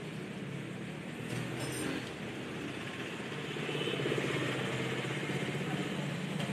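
Background motor traffic: a steady engine hum, swelling a little about halfway through.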